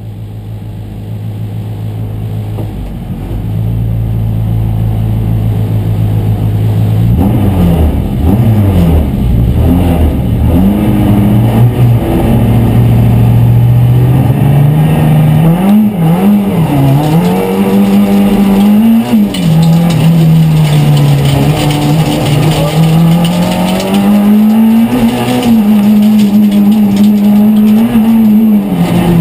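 Renault Clio Ragnotti Group A rally car's four-cylinder engine, heard from inside the cabin. It runs at a steady raised idle, then is revved up and down repeatedly about seven seconds in, before pulling away hard, the pitch climbing and dropping with the gear changes.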